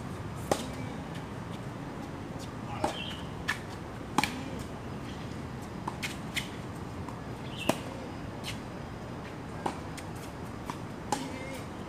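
Tennis ball rally on a hard court: sharp pops of racket strikes and ball bounces every second or so, some loud and near, others fainter from the far end, with a few short high squeaks between them.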